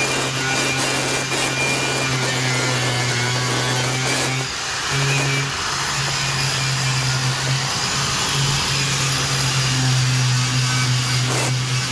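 Handheld power grinder running steadily, grinding old caulk and adhesive off a bathtub's edge, with a brief dip in the motor note about four and a half seconds in.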